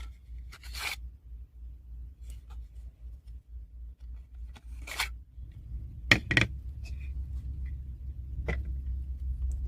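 Objects being handled: a few short scrapes and clicks, the loudest two close together about six seconds in, over a low steady hum.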